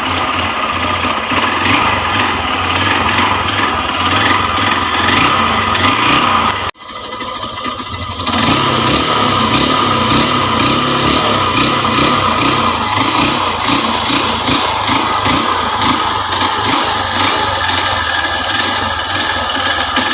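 Honda XR150L's single-cylinder engine running at a steady idle just after a cold start with the choke off, showing it starts easily when cold. The sound drops out abruptly about seven seconds in and comes back a second or so later.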